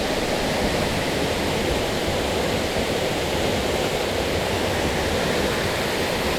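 A waterfall about 35 metres high, its falling water making a steady, even rush.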